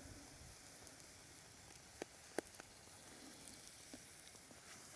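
Oil sizzling faintly under bannock dough frying in a cast iron pan over campfire coals, with two sharp clicks about two seconds in.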